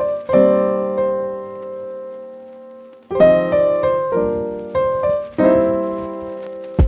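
Piano music: a few struck chords, each left to ring and fade, with fresh chords about three seconds in and again near five seconds.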